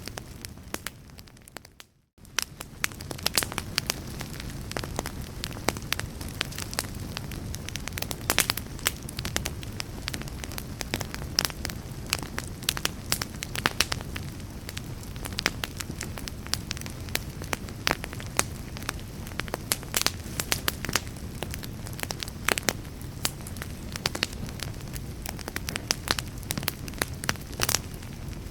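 Wood fire burning in a fireplace: a steady low rumble of flames with frequent sharp crackles and pops. The sound fades out to silence for a moment about two seconds in, then comes back.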